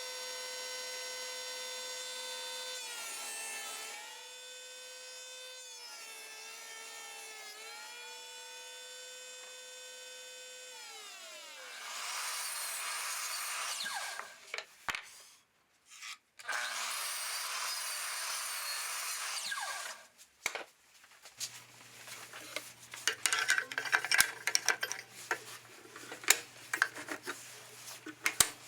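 DeWalt compact table saw running with a steady whine that sags in pitch three times as the blade cuts through wood, then spins down about 11 seconds in. A noisier tool then runs twice for a few seconds each, followed by knocks and clatter of wood and tools being handled.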